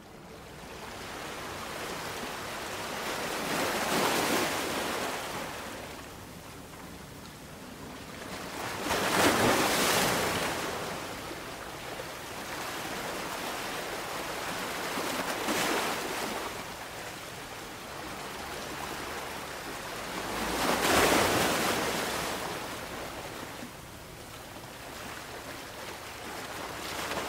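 Ocean surf: waves breaking and washing up a beach, a rushing hiss that swells and fades, with four big surges about five to six seconds apart.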